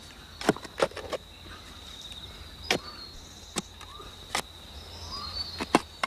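A steady high insect trill, with about eight sharp knocks at irregular intervals over it.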